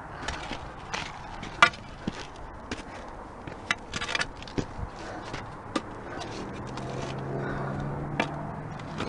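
Footsteps climbing a rocky, eroded trail: irregular sharp clicks and scrapes of boots on stone and gravel. A low steady hum joins about six seconds in.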